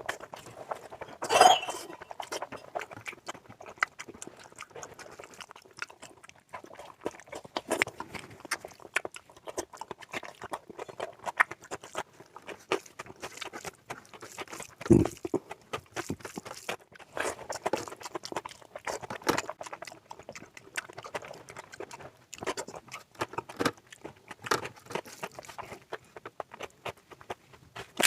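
Close-miked eating sounds: irregular chewing with wet mouth clicks and smacks, from a person eating mutton fat curry with rice. A couple of louder smacks come about a second and a half in and about halfway through.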